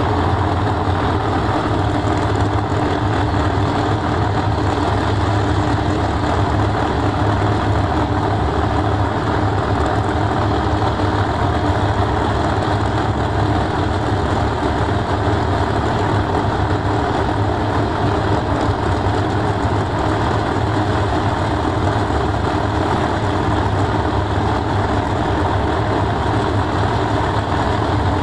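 Drag-race car engines, a black Chevy Nova and a white Ford Mustang, idling steadily at the starting line as they wait to restage: a loud, even low rumble with no revving.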